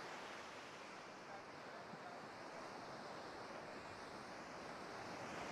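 Surf breaking and washing up the beach: a steady, faint hiss of waves.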